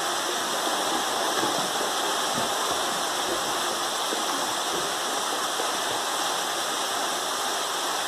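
Small waterfall pouring into a rock pool: a steady rush of falling water.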